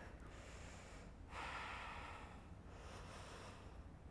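A woman's faint, slow breathing as she holds a yoga pose: about three long breaths, one after another.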